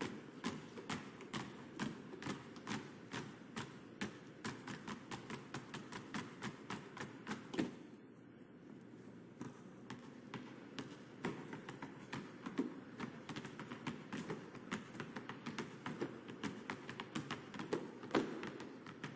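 Several basketballs dribbled on asphalt, the bounces laid out in a quick rhythm as a percussion routine. The bouncing stops briefly about eight seconds in, then picks up again.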